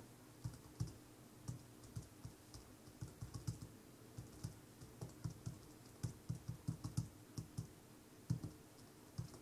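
Typing on a tablet's thin clip-on keyboard cover: faint, uneven key taps, with short pauses about four and eight seconds in.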